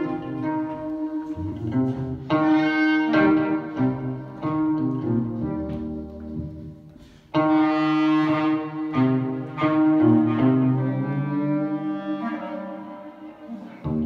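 Live instrumental folk music from a duo: guitar and a wind instrument play a slow melody of sustained notes. The music thins out and fades about six seconds in, then comes back strongly a second later. Near the end some notes slide in pitch.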